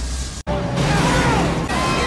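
Action-film soundtrack: dramatic score music over the rumble and crackle of explosions and debris. The sound drops out briefly at an edit about half a second in.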